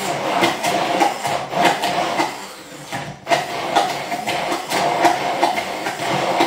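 Immersion hand blender running in a tall beaker, puréeing a thick yogurt, avocado and cilantro sauce, with irregular clicks and knocks over its steady motor hum. It drops off briefly about halfway through, then runs again.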